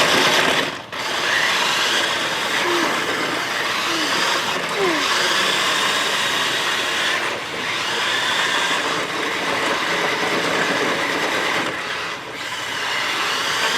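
Electric motor and gear drive of a 1/8 scale toy RC Jeep Wrangler running as it drives, a steady mechanical noise with brief breaks about a second in and near the end.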